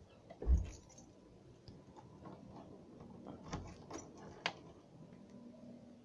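Faint scattered clicks and ticks, with a soft low thump about half a second in.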